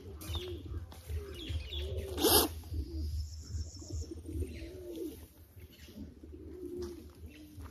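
Doves cooing over and over in low calls, with one sharp knock a little over two seconds in.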